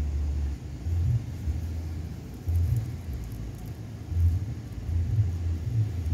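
Wind buffeting the microphone: low, irregular rumbles that swell and fade about once a second.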